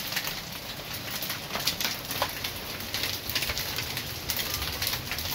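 Hail and heavy rain pelting the garden, an even rushing noise peppered with many irregular sharp clicks of hailstones striking.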